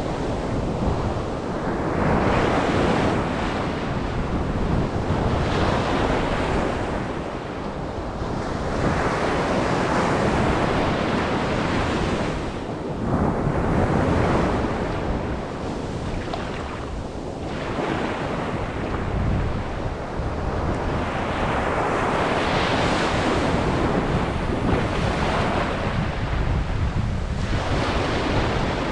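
Ocean surf breaking on a beach, the wash swelling and easing every few seconds, with wind rumbling on the microphone.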